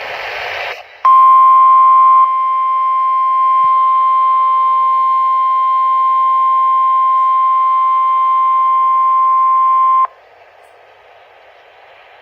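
NOAA Weather Radio warning alarm tone, the 1050 Hz test alarm. After a short burst of noise, one steady high tone sounds for about nine seconds, loudest for its first second, then cuts off suddenly into low radio hiss.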